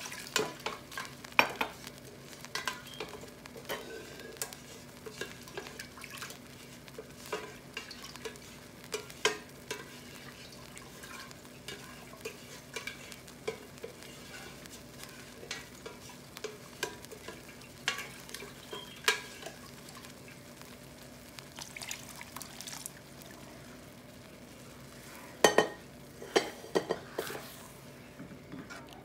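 Thick dal simmering in a pot, bubbling with irregular soft pops over a faint steady hum. Near the end a spoon stirs the dal, knocking against the pot a few times.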